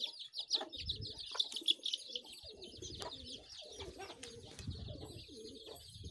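Young chicks peeping in a dense, continuous run of short high cheeps, with domestic pigeons cooing low underneath.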